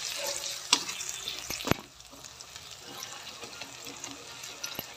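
Chopped onion, green chillies and ginger-garlic paste sizzling in hot oil in a kadhai while a metal spatula stirs and scrapes them. A few sharp clicks of the spatula striking the pan stand out. The sizzle turns quieter about two seconds in.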